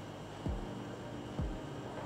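Soft background music with held low notes and two deep thumping beats, about half a second and a second and a half in.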